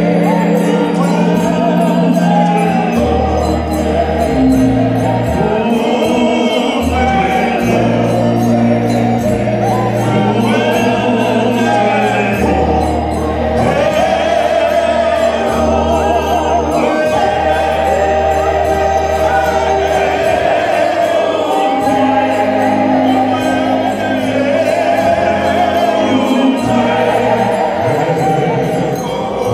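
A group of voices singing together, accompanied by an electronic keyboard playing long held bass notes that change every second or two.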